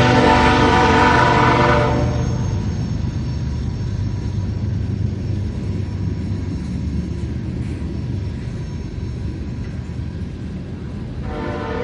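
Train horn sounding a multi-tone chord, cutting off about two seconds in and leaving the steady low rumble of the moving train. The horn sounds again near the end.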